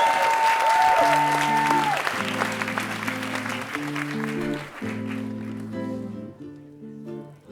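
Audience applause with cheering and whistles after the song, fading out over the first half. About a second in, the band starts the next tune of the medley with steady, sustained chords.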